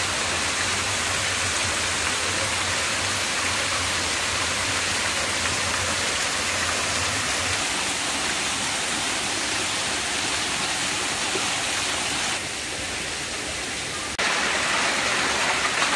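Small waterfalls and cascades of a rocky mountain stream rushing steadily. Near the end the rush drops quieter for about two seconds, then comes back louder.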